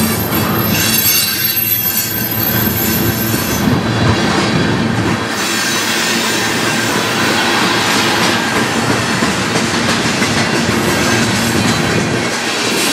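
Freight cars of a passing freight train rolling by close up: steady rumble and clatter of steel wheels on the rails. High-pitched wheel squeal rings over it for the first few seconds.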